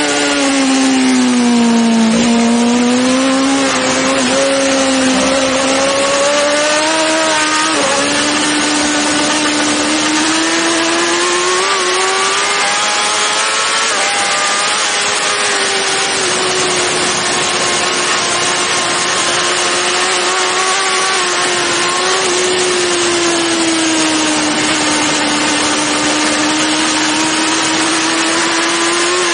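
BMW S1000RR racing superbike's inline-four engine at speed on track. Its pitch dips and climbs with throttle and gears, with a brief break about eight seconds in, over heavy wind rush on the onboard camera.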